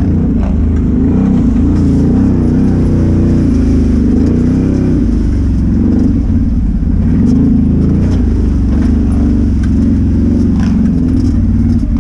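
ATV engine running under load on a rough trail, its revs rising and falling unevenly, with a few light knocks.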